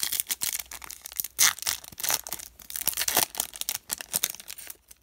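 Foil wrapper of a Topps Chrome baseball card pack being torn open and crinkled by hand: a dense run of crackling rustles, the loudest tear about a second and a half in.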